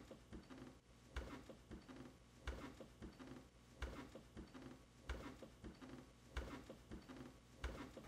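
Slow footsteps on a wooden floor in a quiet room, a firmer step about every second and a bit, with softer ones between.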